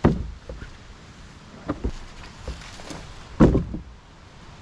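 Pieces of cut tree wood being loaded into a plastic sled: a series of dull thumps and knocks, the loudest about three and a half seconds in, with footsteps in the brush.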